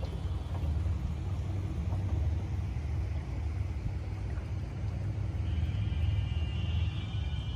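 Flatboat's outboard motor running steadily under way, a constant low rumble.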